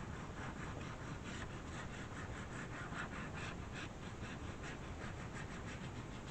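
Quick, scratchy strokes, several a second, as wet glue is worked along the edges of a fibrous handmade paper.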